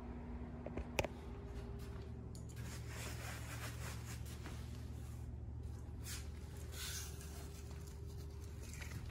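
Quiet indoor room tone with a steady low hum, one sharp click about a second in, and soft rubbing and rustling noises a few times after.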